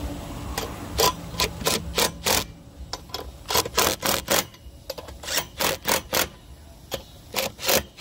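Milwaukee cordless impact driver hammering lug nuts tight on a spare wheel, in a run of short bursts with brief pauses between them.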